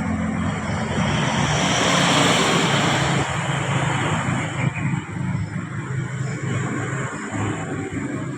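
Road traffic: a steady low engine hum, with a vehicle passing close by that swells about two seconds in and then fades.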